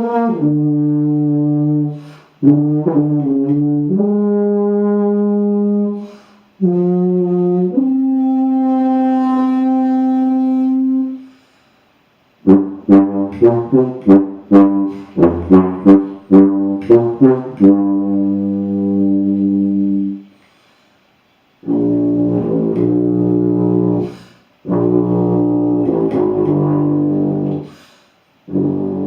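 Plastic B-flat tuba with rotary valves played solo: several held low notes with short breaks, then a run of quick tongued notes about halfway through, followed after a pause by longer sustained notes.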